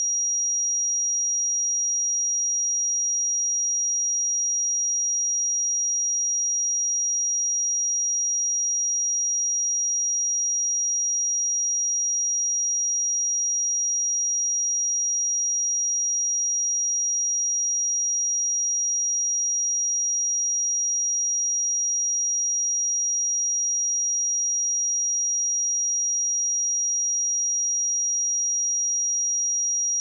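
A steady 5724 Hz sine-wave test tone, one pure high-pitched tone held at a constant level.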